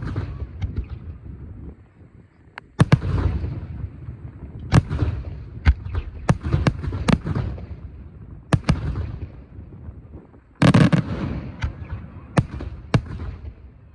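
Aerial fireworks display: a run of shell bursts, irregularly spaced sharp bangs, each trailing into a low rumble. The loudest and longest burst comes about three-quarters of the way through.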